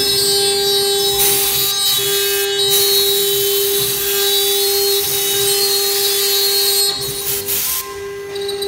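STM1325 CNC router spindle running with a steady high whine as the bit cuts through MDF, with a rasping cutting noise that swells and eases as the tool moves; the cutting noise slackens near the end.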